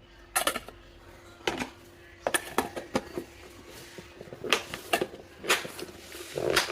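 Scattered clinks and knocks of kitchen utensils and dishes being handled, irregular and a few each second, over a faint steady hum.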